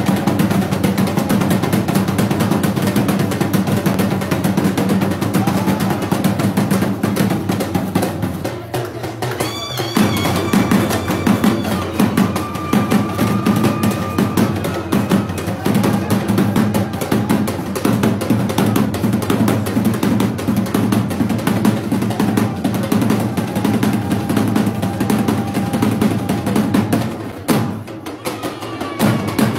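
Music of fast, dense drumming with a rolling beat, dropping out briefly about nine seconds in and again near the end.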